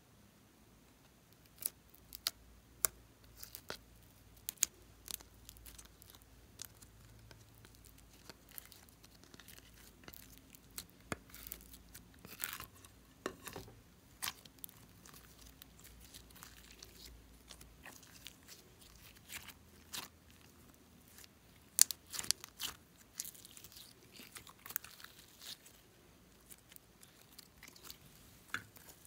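Glossy slime being stretched, pulled apart and folded by hand, giving irregular sharp pops and crackles as air pockets break, with one louder snap about two-thirds of the way through.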